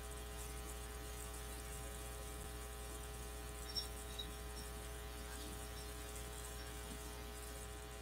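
Steady electrical hum with a buzzy edge, with one faint click about four seconds in.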